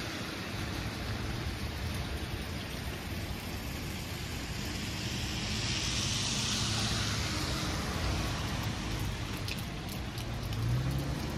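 Street traffic ambience on wet pavement: a steady hiss of tyres on the wet road, with one vehicle's hiss swelling and fading about halfway through.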